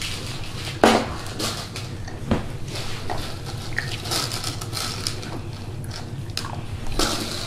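Light tabletop clatter: scattered small knocks, clicks and rustles of lollies and plastic bowls being handled, with a sharper knock about a second in.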